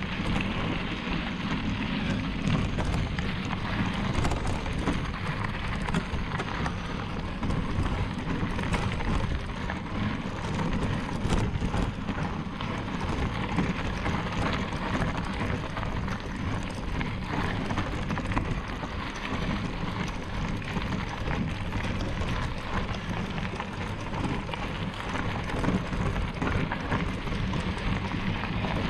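Mountain bike ridden over rough ground: a steady clatter and crackle of tyres and rattling bike parts, mixed with wind noise.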